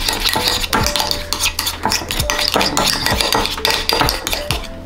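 A metal spoon stirring wasabi mayonnaise in a ceramic bowl, scraping and clinking against the sides in quick, irregular strokes.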